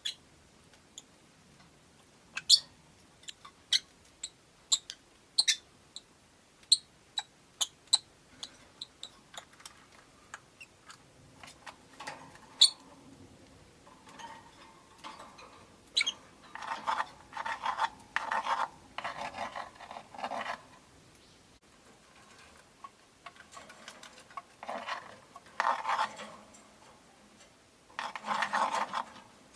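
Caged rosy-faced lovebirds: a run of short, sharp, high chirps about once a second, then from about halfway several bursts of scratchy, rasping chatter.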